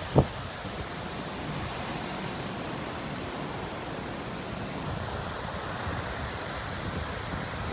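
Steady rushing noise of typhoon wind, with one short thump just after the start.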